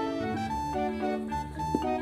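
Background keyboard music with held notes in a gentle melody, and a single brief knock near the end.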